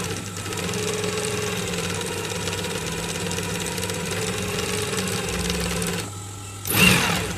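Industrial single-needle sewing machine stitching fabric, running steadily for about five seconds and then stopping, its motor still humming. A brief loud noise comes near the end.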